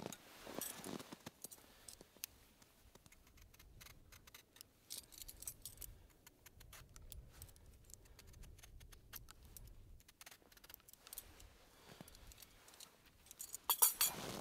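Metal vegetable peeler paring zest from an orange, a run of small scraping clicks. A knock at the start as the orange is set on a wooden cutting board, and a louder metallic clatter near the end as the peeler is put down on the board.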